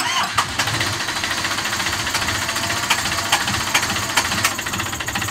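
Yanmar marine diesel engine just started and idling with a steady, knocking diesel clatter, heard through the open engine hatch.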